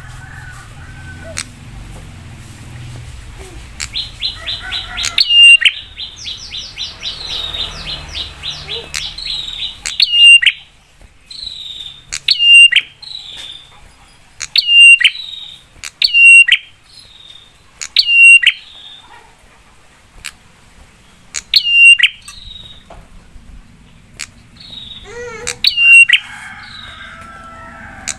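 Prinia (prenjak) calling. A fast run of rapid, ticking notes begins about four seconds in. It is followed by loud, sharp, downward-slurred calls repeated every couple of seconds or so, with a longer gap near the end.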